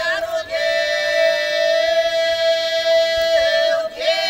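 Bulgarian women's folk group singing Shopluk polyphony a cappella: long held notes, with one part steady as a drone and another held very close to it in pitch. The singing breaks off briefly for breath about half a second in and again near the end.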